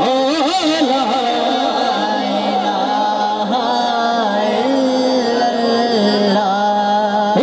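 A male voice singing a Punjabi devotional kalam in a long wordless melismatic passage, holding notes that waver and slide between pitches.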